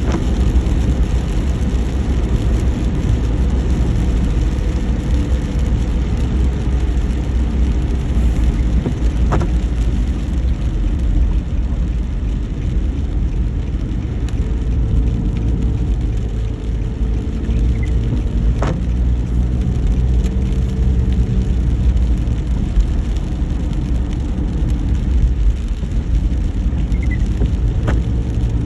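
Steady low rumble of a car driving, with a faint engine hum, broken by three short sharp clicks about nine seconds apart.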